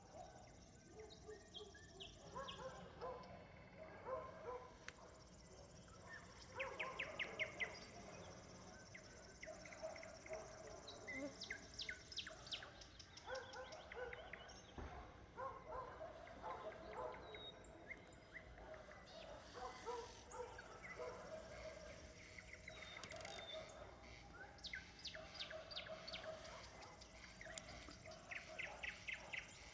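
Distant village dogs barking again and again, while a nightingale sings several runs of fast repeated trilling notes. The whole is faint.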